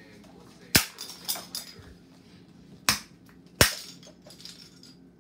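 Sharp cracks and knocks of hard plastic: a Zuru Smashers toy ball being smashed open, with three loud cracks about a second, three seconds and three and a half seconds in and a few lighter clicks between them.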